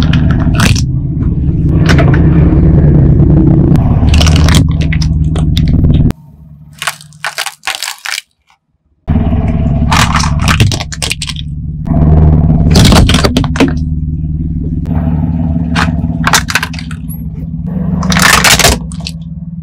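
Car engine running close by as its tyre rolls over objects on paving, with sharp cracks and breaking as they are crushed: glass cups shattering, then plastic toys cracking. The sound drops away for about three seconds a third of the way in, then the engine and the cracks return.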